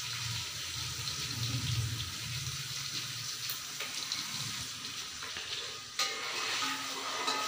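Sliced onions sizzling steadily as they fry in ghee in a steel pot, just starting to colour. About six seconds in comes a single sharp knock as the ladle strikes the pot.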